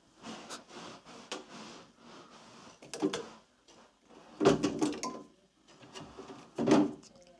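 Handling noise as multimeter test leads are clipped and pressed onto the brass terminals of an immersion heater element: irregular rustling, scraping and small clicks, with louder scuffs about three seconds in and twice more near the end.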